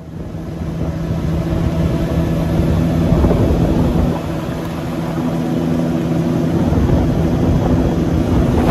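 Motorboat engine running under way, building up over the first second and then holding a steady drone.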